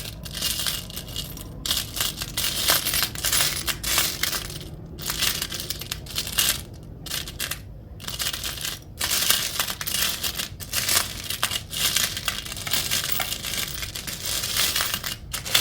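Small metal charms rattling and clinking as a hand sifts through a pile of them, a continuous jingle broken by a few short pauses.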